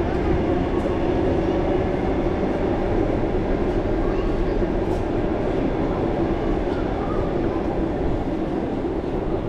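A train running at the station: a steady rumble with a constant low hum that does not change.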